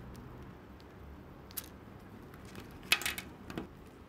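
Plastic pieces of a magnetic Meilong 4x4 speedcube clicking and clacking as they are pushed into place in the partly built cube. A single click about one and a half seconds in, then a quick cluster of clicks about three seconds in, the loudest.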